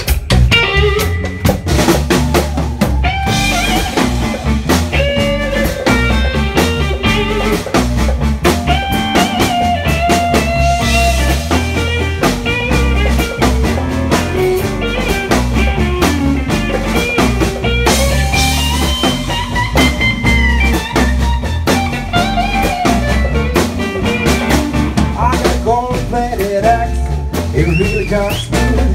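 A live blues band plays an instrumental stretch: two electric guitars, bass and a drum kit keep a steady beat, and a lead guitar plays melodic lines with bent notes.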